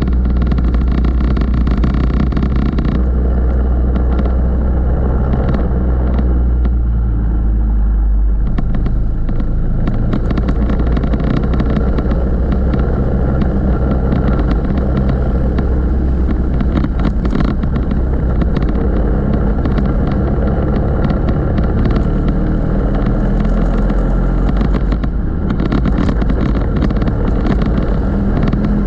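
Racing go-kart engine running hard at close range, its note rising and falling as the kart slows for corners and accelerates out of them.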